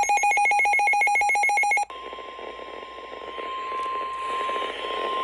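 A loud, fast-pulsing buzzy electronic tone, about a dozen pulses a second, cuts off sharply after about two seconds. It gives way to the steady single-pitch NOAA Weather Radio warning alarm tone, about 1050 Hz, held over radio hiss for about three seconds. The alarm tone signals that a severe weather warning is about to be read.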